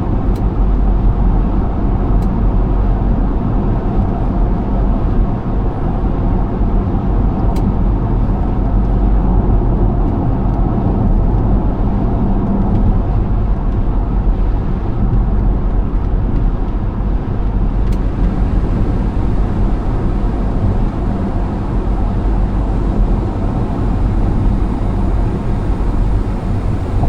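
Steady road and engine noise heard from inside a car's cabin while cruising at freeway speed, a low continuous roar of tyres and wind with a faint drone.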